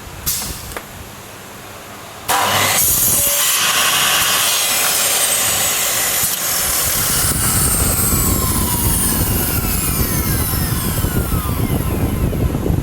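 Makita 1030 electric saw switching on with a sudden loud start about two seconds in and running, cutting wood for frame pieces. Its whine falls in pitch through the second half.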